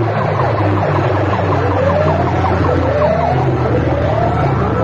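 A siren-like electronic sweep blasted through a bank of horn loudspeakers: first a rapid chirping warble, then rising whoops about once a second, over a steady low drone.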